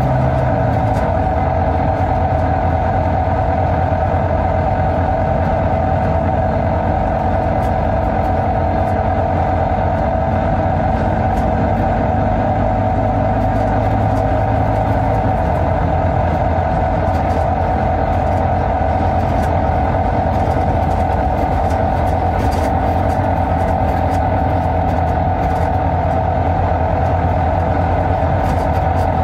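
Volvo B9TL double-decker bus's D9B diesel engine running under way, a steady drone with a steady whine above it. The engine note drops a step about a second in and again about fifteen seconds in.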